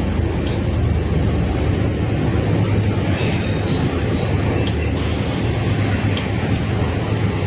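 City bus heard from inside the cabin while moving: a steady low engine and road rumble, with a few short sharp rattles or clicks.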